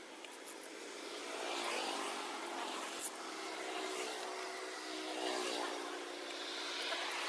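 An engine running steadily, growing louder about a second in.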